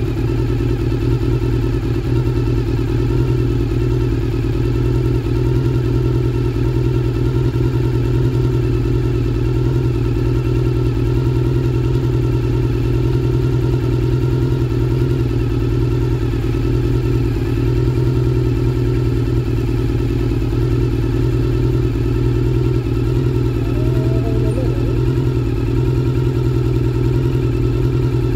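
Suzuki Impulse scooter's single-cylinder four-stroke engine idling steadily at an even speed.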